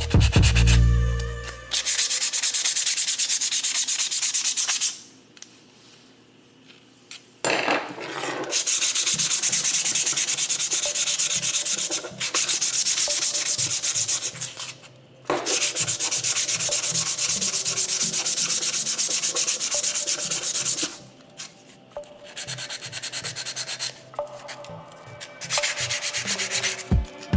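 Sanding rust off the steel wing dividers: several even passes of abrasive scraping a few seconds long, with short pauses between them. A loud low rumble sounds in the first two seconds.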